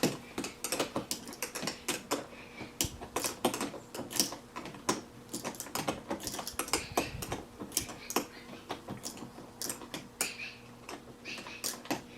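Two 7/16-inch wrenches working the nut off a trailer door hinge bolt: a run of irregular, sharp metallic clicks and clinks, several a second.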